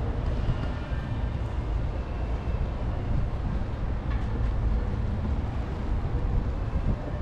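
Steady low rumble of passing traffic, with a faint high whine running through it.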